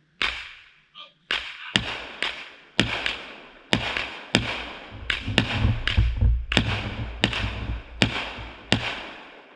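Phantom Fireworks Pint Sized Powerhouse cake firing a rapid string of shots, about one to two a second, each a sharp crack that fades out. The shots come heavier, with a deeper rumble, around the middle.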